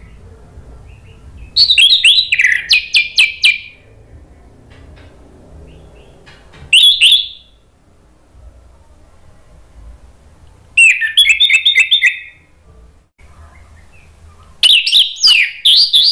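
Orange-headed thrush singing: four loud bursts of rapid, fast-changing notes separated by pauses of a few seconds.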